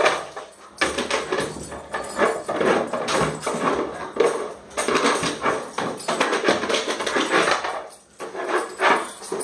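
A German Shorthaired Pointer puppy playing with a hard plastic disc on a tile floor: the disc clatters and scrapes as it is pushed and dropped, mixed with the dog's claws clicking and scrabbling on the tile, in a run of irregular knocks.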